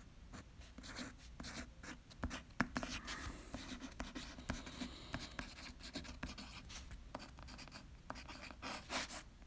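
Pencil writing on a sheet of paper: quiet, irregular scratching strokes as letters are written out one after another.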